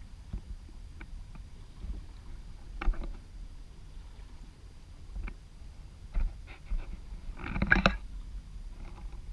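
Small sailing boat under way: a steady low rumble of wind and water along the hull, with scattered knocks and creaks from the boat's fittings and rigging, and a louder burst of clattering knocks about three-quarters of the way through.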